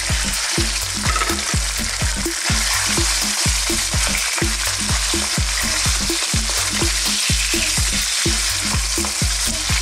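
Thin strips of beef frying in hot oil in a wok, sizzling steadily while a wooden spatula stirs and turns them.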